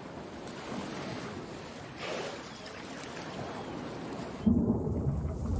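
Rushing water noise, an even hiss. About four and a half seconds in it gives way suddenly to a louder low rumble.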